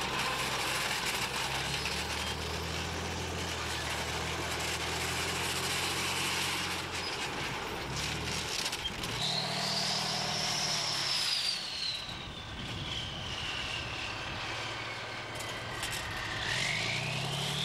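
Heavy vehicle engine running steadily, with a high whine that starts about nine seconds in, slides slowly down and climbs again near the end.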